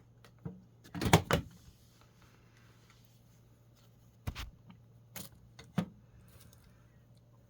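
Cat coughing: a quick run of three harsh, sharp coughs about a second in, followed by three shorter single sounds a few seconds later.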